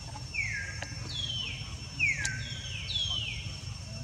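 Baby monkey giving five high, squealing calls, each falling sharply in pitch and lasting under half a second, the loudest about two seconds in.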